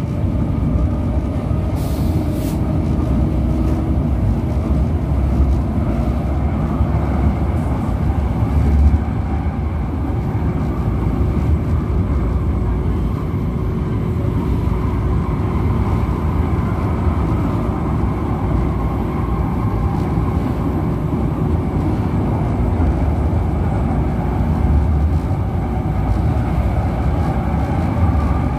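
Manila LRT Line 1 light-rail train running on its elevated track, heard from inside the car: a steady, even rumble with faint whining tones above it.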